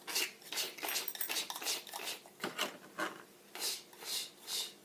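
About ten short scraping strokes in a row, two or so a second, each a brief rasp.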